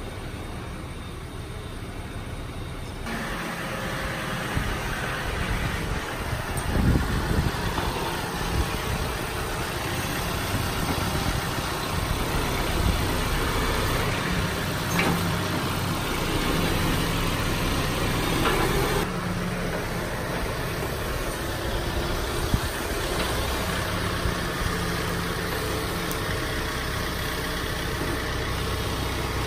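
A vehicle engine running steadily for the whole stretch, getting louder about three seconds in.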